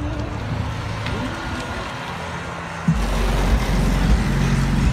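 Small sedan driving off slowly; about three seconds in, heavy bass from its car stereo subwoofers suddenly comes in and holds deep, steady low notes.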